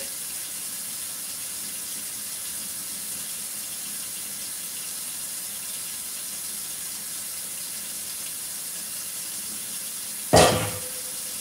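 A steady, even hiss in a kitchen, and one sudden loud knock about ten seconds in.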